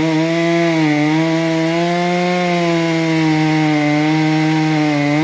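Chainsaw running at high revs, its pitch holding steady with slight dips.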